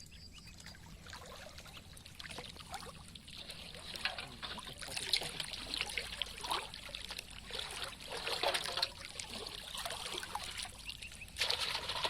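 Water splashing and trickling in irregular small bursts, growing louder, with a short lull near the end before it picks up again.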